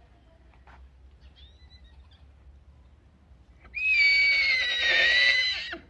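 Horse whinnying once: a loud, high call held for about two seconds, sinking slightly in pitch, starting about four seconds in.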